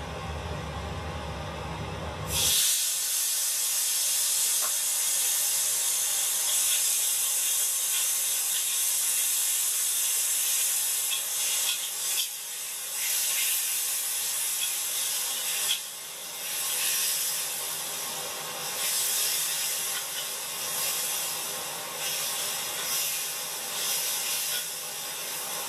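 Tomato slices hitting a hot oiled wok: a sudden loud sizzle about two and a half seconds in, after a low steady rumble. The sizzle carries on, surging and dipping as the tomatoes are stir-fried with a spatula.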